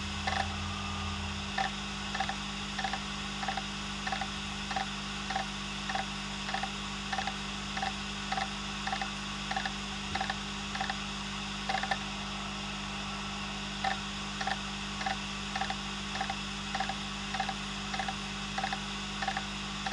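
Western Digital Green hard drive running with its lid off: a steady motor hum with the heads clicking about twice a second, pausing briefly near the middle. It is the repetitive seek-clicking of a failed drive that the computer cannot read, which the owner thinks could be the heads not picking up signal.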